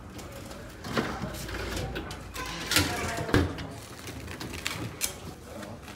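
Clatter of tableware and food preparation: a handful of sharp clinks and knocks over a low background with faint voices.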